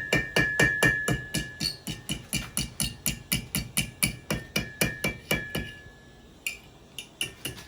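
Hammer striking a heated steel nail on the horn of an anvil in a quick even rhythm, about four blows a second, each with a short metallic ring, as the blade is rounded. The blows pause briefly near the end, then resume.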